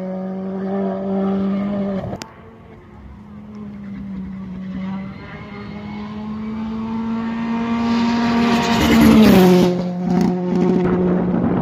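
Rally car engines at speed on a special stage. One car goes away, its engine note holding steady after having dropped as it passed. After a cut, a second rally car approaches, growing steadily louder, and its engine note drops as it passes by about nine seconds in.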